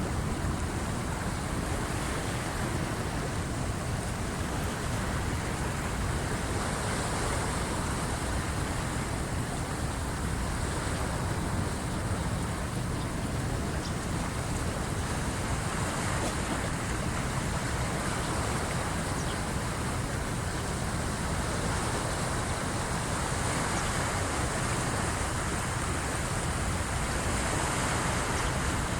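Waves of the incoming flood tide washing against the shore in a steady, unbroken wash, with wind rumbling on the microphone.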